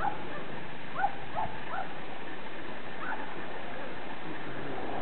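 Several short, high animal calls, five in the first three seconds, over a steady background hiss.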